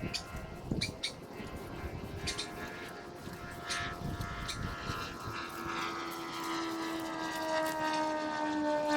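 A mechanical drone of several steady tones that slowly fall in pitch and grow louder over the second half. A few sharp clicks come in the first four seconds.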